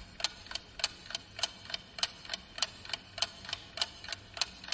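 Clock-ticking sound effect: an even tick-tock of sharp ticks, about three a second, marking a pause for thought before a score is announced.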